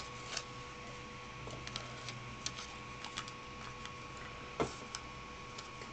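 Scattered light clicks and taps of hands working a 3D printer's bed and paper under the nozzle, with one sharper click about three-quarters of the way through, over a faint steady hum from the powered printer.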